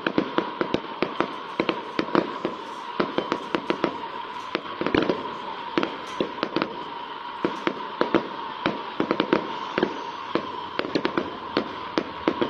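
Fireworks display: aerial shells bursting in rapid, irregular bangs, several each second, with no let-up.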